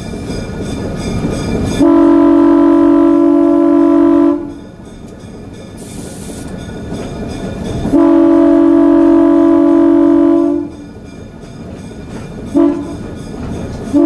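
ALCO RSD-1 diesel locomotive's multi-note air horn sounding two long blasts, a short one, and the start of a final long one: the long-long-short-long grade-crossing signal. The locomotive's running and wheel noise fills the gaps between blasts.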